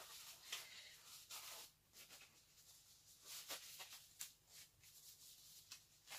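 Faint rubbing and rustling of black disposable gloves being pulled onto the hands, in short, scattered strokes.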